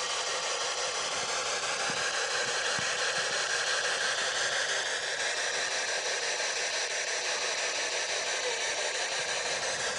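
Spirit box radio static: a steady hiss as the device sweeps through stations, with no clear voice coming through.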